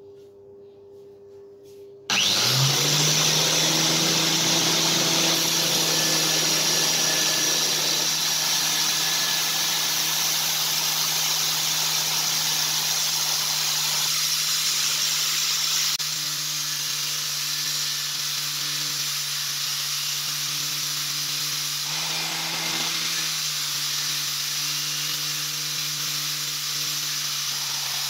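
Belt grinder switching on about two seconds in and then running steadily, its motor humming under a broad grinding hiss as a steel knife blade held in a jig is ground against the abrasive belt.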